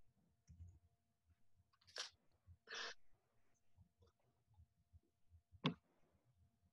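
Near silence: room tone with a faint steady hum, broken by two short soft noises about two and three seconds in and a single sharp click near the end.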